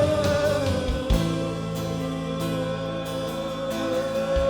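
Live gospel worship music: a voice holds one long note over a sustained chord, with a drum hit about a second in and another near the end.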